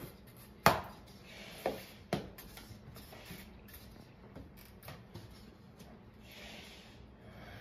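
Plastic PC case fans being pressed down and handled in their panel: three sharp knocks in the first couple of seconds, the first the loudest, then light taps and faint rustling.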